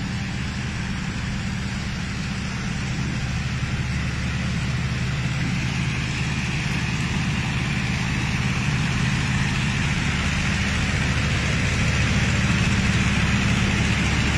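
A septic-tank vacuum truck's engine runs steadily with a low hum and a hiss above it, growing slightly louder.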